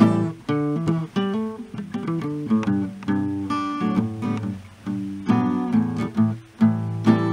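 Acoustic guitar playing an instrumental passage, strummed chords mixed with picked notes.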